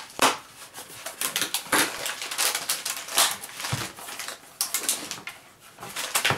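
Cardboard package being pulled open by hand: irregular tearing, scraping and crinkling of cardboard and paper wrapping.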